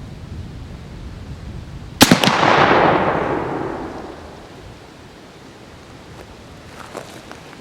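A .45-70 Sharps Model 1877 replica single-shot rifle fires once about two seconds in. A second sharp crack comes a fraction of a second after the report, then a long fading wash of sound. A few faint clicks follow near the end.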